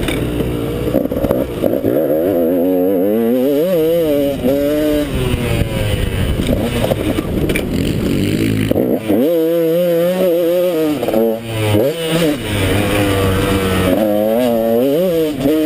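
KTM 200 XC-W two-stroke single-cylinder dirt bike engine under riding load, heard on board. Its pitch rises and falls again and again with throttle and gear changes, with a brief drop about nine seconds in.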